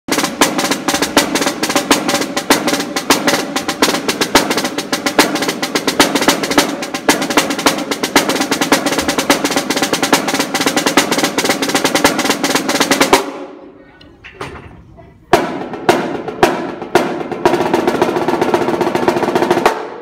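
Snare drum played fast and loud in dense rolls and rudiments. About 13 seconds in it breaks off, the sound ringing away in the hall, with a few single hits, then the fast playing starts again about two seconds later.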